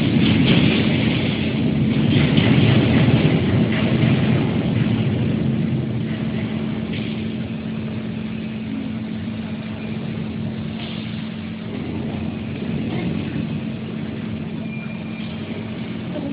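The hydraulic pump unit of a 1400 kg hydraulic lifting welding positioner runs with a steady hum while the table tilts forward under load. The sound is louder and rougher over the first few seconds, then settles.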